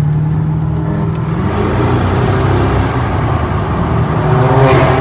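Mercedes CL500's V8 pulling under hard acceleration, heard from inside the cabin. About a second and a half in the automatic gearbox shifts up and the engine note drops, then it climbs again while the road noise grows louder.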